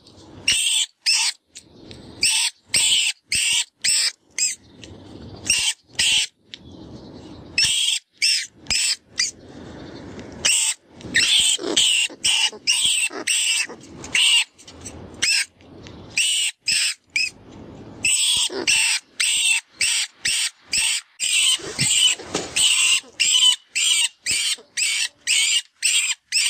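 Rodent distress call, the FoxPro "Vermin Pest Control" recording used to lure foxes: rapid high-pitched squeaks in runs of about two to three a second, broken by short pauses with a fainter, lower scratchy sound between runs.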